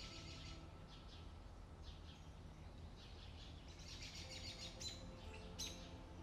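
Faint background music with soft held notes, with quick high twittering flicks running through it and a sharp tick about five and a half seconds in.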